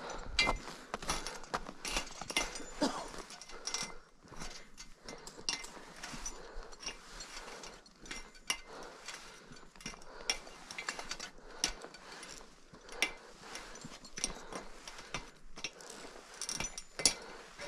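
Steel crampon points clinking and scraping on the rungs of an aluminium ladder bridge, step after step, in many sharp, irregular metallic clicks.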